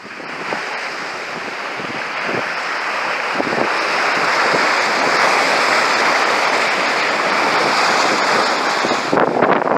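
Water rushing and spraying along a sailboat's hull as it beats close-hauled into a force 7 wind, with heavy wind noise on the microphone. The rush grows steadily louder over the first several seconds, with a few sharp hits near the end.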